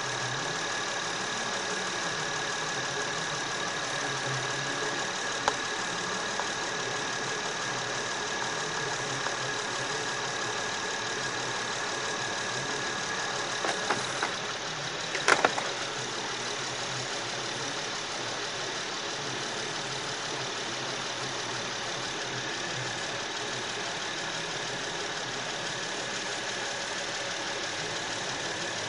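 Car engine idling steadily. A high steady tone stops about halfway through, and a few sharp clicks come around the middle.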